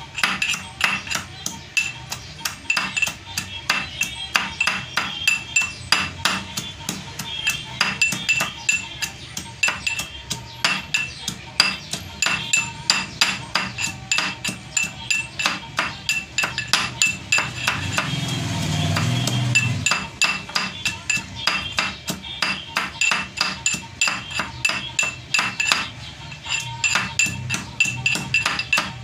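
Steel pestle pounding in a stainless-steel mortar: a steady run of sharp metallic clinks, about three a second, each with a short ring. Around two-thirds through, the pounding pauses briefly under a louder low hum.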